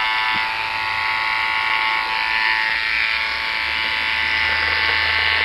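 Electric hair clippers buzzing steadily as they trim jigsaw-piece outlines into hair.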